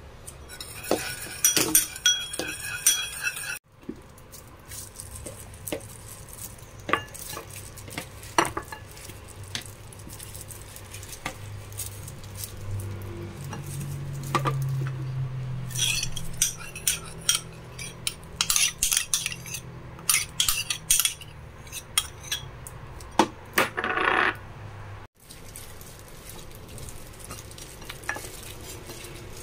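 Kitchen prep sounds of a metal spoon and ceramic bowls clinking and tapping. A rattling run near the start as seasoning is shaken from a small shaker over the spoon, then scattered clinks and a quick flurry of taps.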